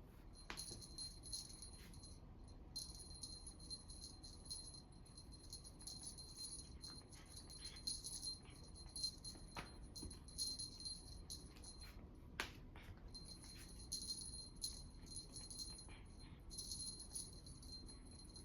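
A small jingle bell jingling on and off in irregular shakes, as when a cat plays with it, with a few soft taps.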